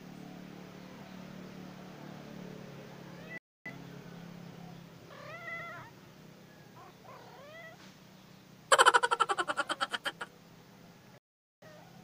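Kittens meowing: a few short meows rising and falling in pitch about five and seven seconds in. They are followed by a loud, rapid rattling crackle of about ten pulses a second, lasting a second and a half, close on the microphone as a kitten comes right up to the phone.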